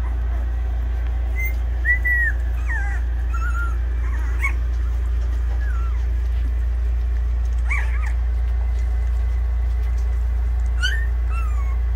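Two-week-old Labrador retriever puppies whimpering and squeaking, with short high-pitched cries scattered through, over a steady low hum.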